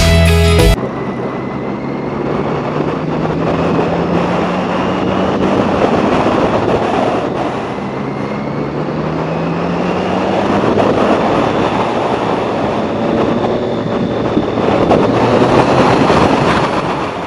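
Motorcycle engine running at road speed under heavy wind noise, its pitch slowly rising and then easing off. A music track cuts off less than a second in.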